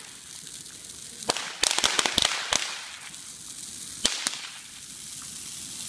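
Firecrackers going off in sharp cracks: one about a second in, a quick run of about six over the next second, and two more around the four-second mark. Under them is the hissing rush of a dry Christmas tree going up in flames, which grows louder.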